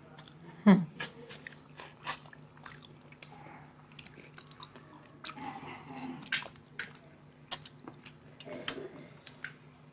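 Close-up eating sounds from two people eating rice and fish curry by hand: chewing and mouth clicks, with fingers mixing rice on steel plates, over a faint steady hum. A short loud falling sound comes under a second in.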